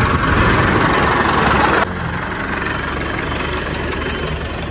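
Diesel engine of a farm tractor running steadily, with a louder rushing noise over it that cuts off abruptly about two seconds in, leaving the engine alone.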